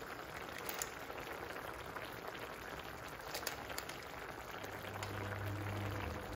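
A pot of seafood sauce with mussels bubbling at a simmer: a steady soft crackle of small pops and bursting bubbles. A low hum joins about four and a half seconds in and stops just before the end.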